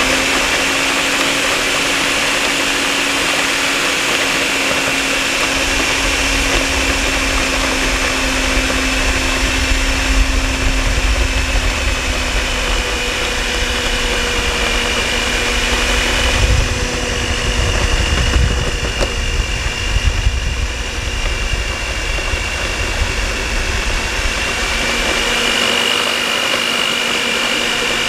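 Moulinex electric mixer on its stand, motor running steadily with a constant whine and hum as its twin beaters churn thick cake batter. A low rumble comes and goes through the middle stretch.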